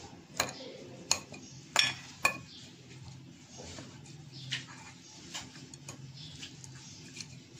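Metal fork mashing boiled potatoes in a glass bowl, the tines clinking against the glass: four sharp clinks in the first two and a half seconds, then softer, scattered taps.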